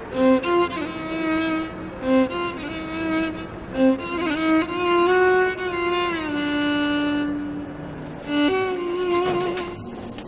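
Background score music: a slow string melody of long held notes, with a downward slide in pitch about six seconds in.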